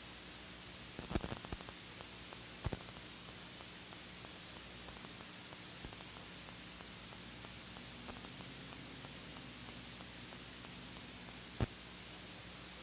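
Steady hiss of the recording's noise floor with a low electrical hum. A short cluster of clicks comes about a second in, a double click near three seconds, and a single sharp click near the end.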